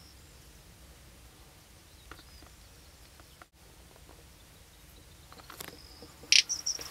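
Male little bustard giving a short, dry, loud call about six seconds in, followed by a few brief high notes; a few faint clicks come earlier.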